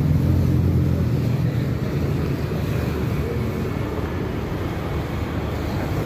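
Traffic passing on a rain-wet city road, motorcycles among it. A low engine hum is loudest in the first second or so, then eases into a steady wash of tyre noise on the wet road.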